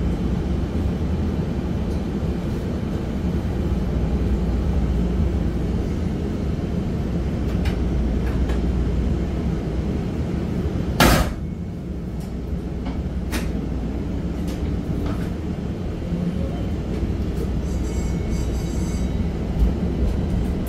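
Pittsburgh Red Line light-rail car running, heard from inside: a steady low rumble, with a sharp knock about halfway through and a few lighter clicks.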